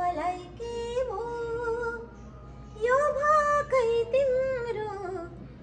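A woman singing a slow, ornamented melody with held, gliding notes, accompanied by a harmonium. She sings two phrases, with a short break about two seconds in.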